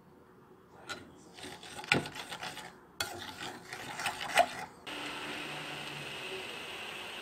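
Metal spoon stirring soy-sauce seasoning in a saucepan, scraping and knocking against the pan in irregular strokes. From about five seconds in, a steady hiss from the pot heating on the hob.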